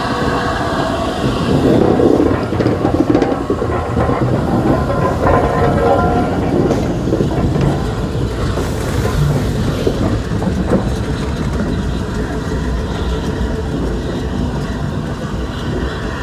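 LNER A3 Pacific steam locomotive Flying Scotsman running slowly past at close range, its wheels clicking over the rail joints. Loudest in the first few seconds, easing as the tender draws away.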